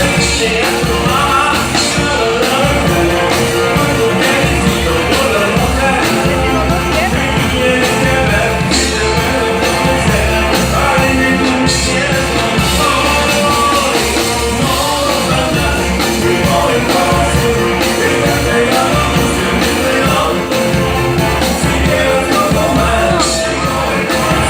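Live band playing loud, with a singer's vocals and some shouts over the music.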